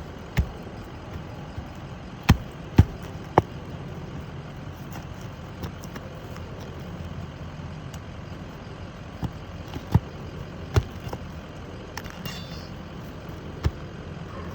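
Roofing nails being driven through asphalt shingles: about nine sharp knocks at irregular intervals, in small groups, over a steady low background hum.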